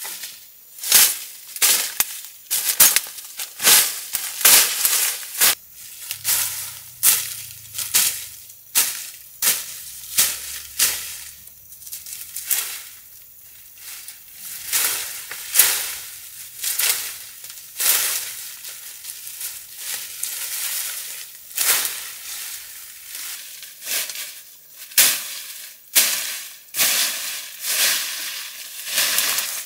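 Repeated sharp cracks and crunches, irregular, about one or two a second, with bright crisp attacks.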